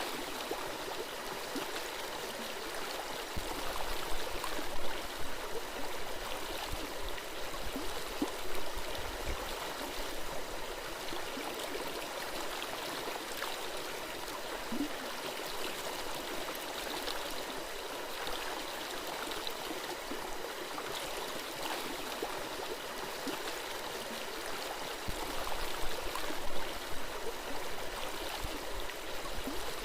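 A forest stream babbling and gurgling steadily over rocks, with a few brief louder swells in the flow.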